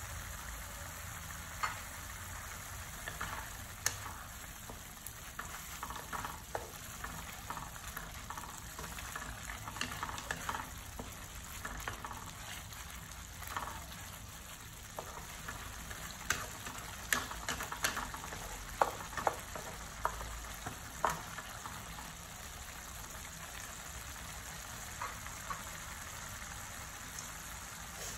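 Minced-meat tomato sauce simmering in a metal pan, bubbling steadily, while a wooden spatula stirs it with scattered knocks and scrapes against the pan. The knocks come thickest and loudest about two-thirds of the way through, then stop, leaving only the simmer.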